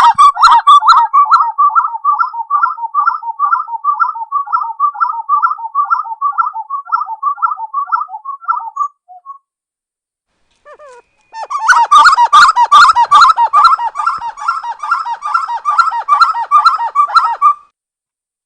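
Spot-winged wood-quail (uru) singing: a long rolling series of rapidly repeated notes, about three a second, lasting some nine seconds. After a short pause comes a second, denser run of overlapping notes.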